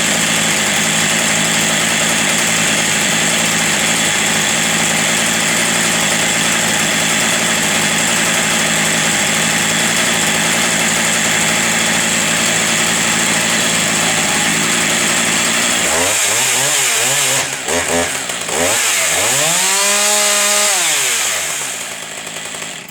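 Husqvarna 575 XP 75cc two-stroke chainsaw running steadily, then revving up and down a few times from about sixteen seconds in before dropping away near the end. The seller says this saw has a little bearing noise and may need to be rebuilt.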